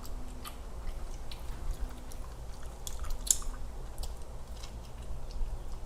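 A person chewing a mouthful of thick-crust veggie pizza, with wet mouth smacks and small crunches scattered through.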